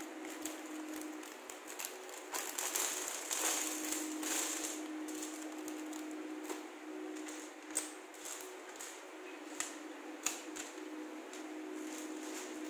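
Thin clear plastic bag crinkling as it is opened and small plastic toy bricks are tipped out onto a tabletop, followed by scattered clicks and taps of the bricks against the table and each other as they are picked up and snapped together. A steady low hum runs underneath.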